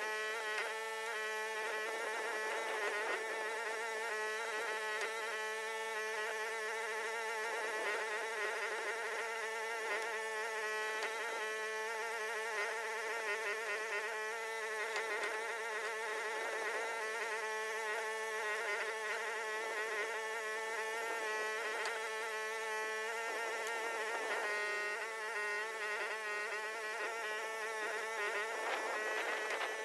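Huayee HY14C mini excavator's engine running at working throttle, a steady buzzing drone whose pitch wavers slightly as the hydraulics take and release load.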